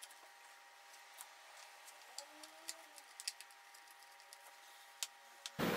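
Faint, scattered small clicks and taps of a screwdriver and parts being handled on an opened MacBook Pro Unibody. Near the end a much louder background hiss starts abruptly.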